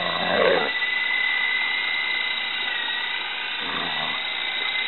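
Lama V3 electric coaxial RC helicopter in flight: a steady high-pitched whine from its motors and rotors, dipping slightly in pitch about three seconds in.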